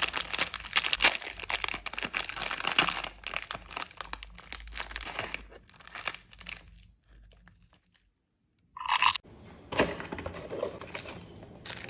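Dense crinkling and crunching from chocolate snacks and their wrappers: a run of crackles for about six seconds, a pause, a brief louder squeak about nine seconds in, then more crackling.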